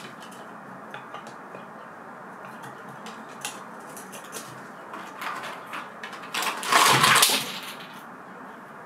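Eurasian red squirrel climbing about a wooden feeder box and a hanging coconut-shell feeder: small clicks and scratches of claws, then a loud scrabbling clatter lasting about a second, about two-thirds of the way in, as the squirrel leaps away.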